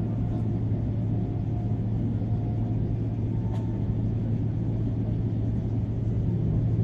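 Steady cabin rumble inside a Boeing 777-300ER on the ground before takeoff, its GE90 engines running at low thrust, with a strong low hum. A faint click comes about three and a half seconds in.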